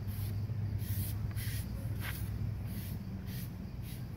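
A foam brush rubbing in repeated strokes over quarter-inch maple plywood, painting on a wet electrolyte solution, about two to three strokes a second. A steady low hum runs underneath.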